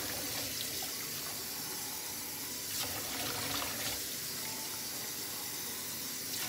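Kitchen faucet running in a steady stream into a stainless steel sink, splashing, as a plastic cup is filled under it.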